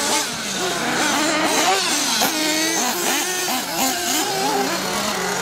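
Several nitro RC buggies' small two-stroke glow engines buzzing at high revs. Their pitches overlap and keep rising and falling as the cars accelerate and back off around the track.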